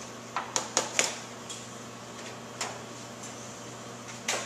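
Aluminium foil pan knocked against another foil pan as wet dirt is dumped out of it. Four sharp taps come close together in the first second, then single knocks near three seconds and near the end.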